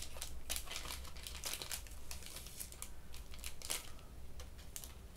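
Crinkling and crackling of a small clear-plastic package being worked open, in a run of irregular sharp crackles.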